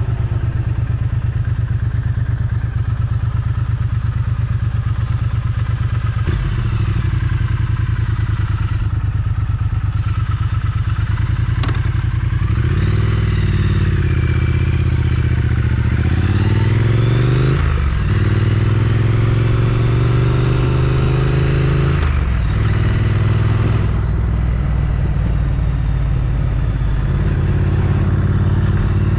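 Triumph Street Twin's 900 cc parallel-twin engine running through its stock exhaust while riding. It holds a steady pitch at first; then, from about twelve seconds in, the engine note rises and drops several times before settling again.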